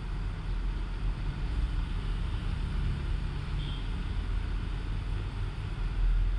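A steady low rumble, with a wooden spatula stirring a thick rice-flour batter in a steel bowl.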